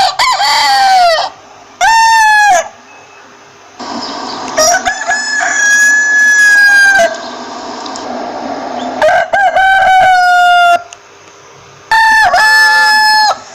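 Roosters crowing, five crows in a row, the middle one the longest and drawn out.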